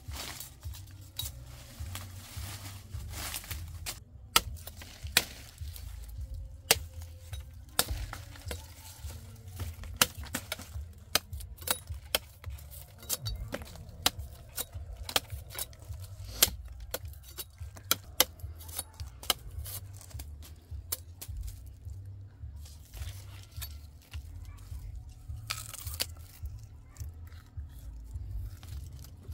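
Knife striking and stripping a sugarcane stalk: a long run of sharp, irregular cracks and scrapes over a steady low rumble. Near the end, the peeled cane is bitten and torn with the teeth.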